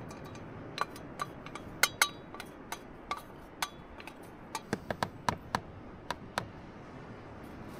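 A utensil clinking and scraping against a small container as melted butter is scraped out into a bowl of flour: about fifteen sharp, irregular clinks, the loudest pair about two seconds in.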